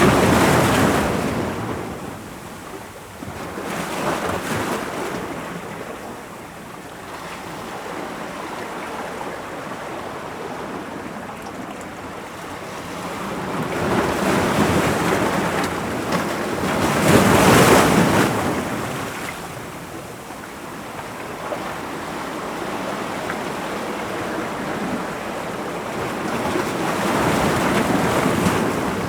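Ocean waves breaking on rocks: a continuous wash of surf that swells and recedes, with the biggest wave crashing about two-thirds of the way through.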